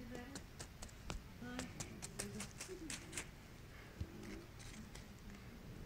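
Light irregular clicks and gritty scrapes of a plastic toy figurine being stepped across sand and small stones, thickest about halfway through, with faint voices underneath.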